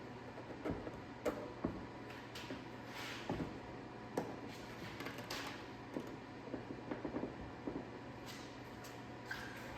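Irregular light knocks, clicks and short scrapes of objects being handled, over a steady low hum.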